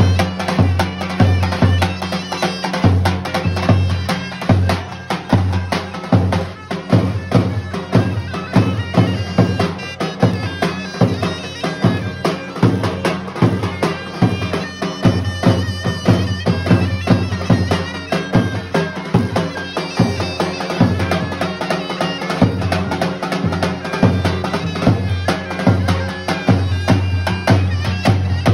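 Zurna and davul played together: the zurna's sustained melody over a steady beat on the large double-headed davul, struck with a heavy mallet and a thin stick.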